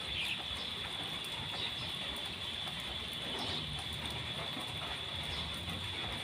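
A terry towel rubbing a small puppy dry, with faint scattered rustling. A steady high-pitched drone runs throughout.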